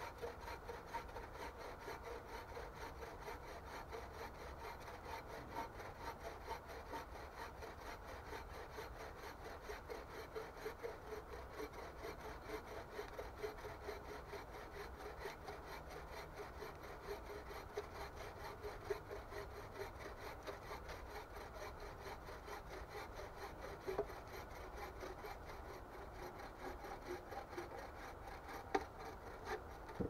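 A home-made bow saw cutting through a log in continuous back-and-forth strokes, with a few sharper clicks near the end.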